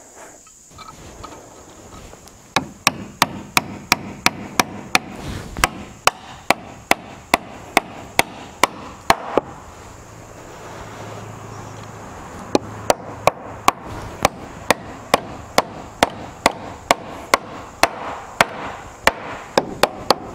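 Hammer blows fastening a metal plate onto a wooden 2x4 roof truss joint: sharp strikes about two to three a second in two runs, with a pause of about three seconds between them.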